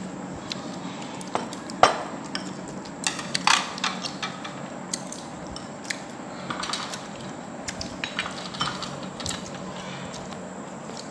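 Chopsticks and spoons clinking and knocking against porcelain bowls and a metal serving tray during a meal: scattered sharp clicks, the loudest about two seconds in and a cluster around three and a half seconds in.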